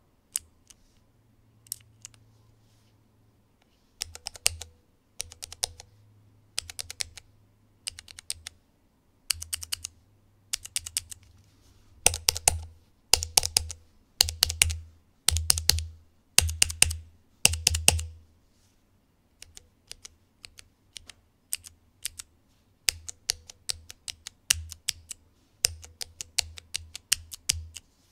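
Cherry MX mechanical keyboard switches in a key tester being pressed and released, at varying force and speed. There are single presses at first, then a loud middle stretch of rapid one-second runs of presses, then lighter quick runs.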